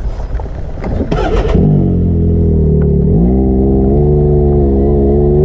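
Vehicle engine pulling away: after a few short rattles, its note rises, drops suddenly about three seconds in as it shifts gear, then climbs again and holds steady.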